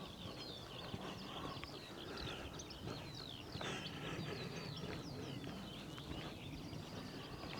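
Chorus of small songbirds twittering and chirping, many quick rising and falling notes overlapping, with soft regular footsteps underneath.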